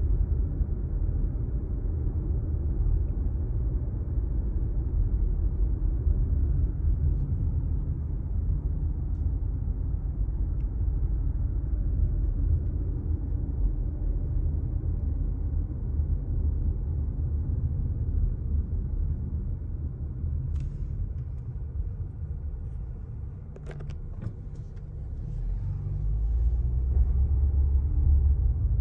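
Steady low rumble of a car driving, heard from inside the cabin: road and engine noise. It eases off for a couple of seconds about three-quarters of the way in, then grows louder again, with a few faint clicks.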